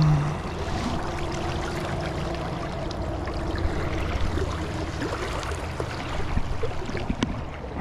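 Steady rush of flowing river water, with a few small clicks and one sharper click about seven seconds in.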